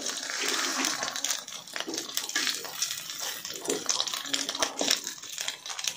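Egg frying in a metal wok, sizzling steadily, while a spatula scrapes and taps against the pan as it spreads the egg out.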